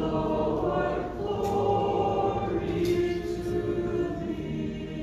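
Orthodox church choir singing liturgical chant in long, held notes, several voices together, as the Gospel reading ends.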